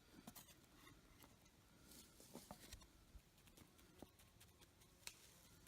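Near silence with a faint hiss and scattered light clicks and taps, one a little louder about five seconds in.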